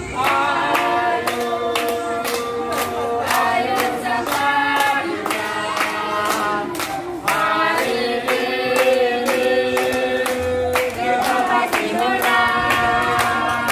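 A group of voices singing a team cheer song in unison, clapping along in a steady beat of about three claps a second, with a brief break in the singing about seven seconds in.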